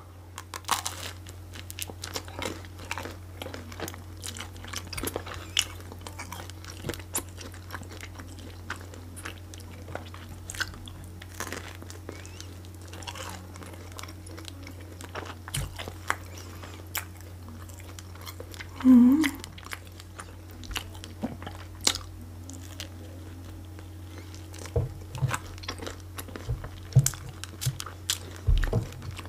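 Close-miked eating: crunchy bites into sprat sandwiches and salad, then chewing, with many small crackles and mouth clicks over a steady low hum. A brief hum of the voice comes about two-thirds of the way through.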